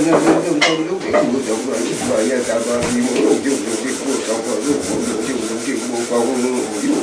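Elderly Lepcha priest chanting a household blessing prayer in a low voice, a fast, unbroken recitation with the pitch stepping up and down.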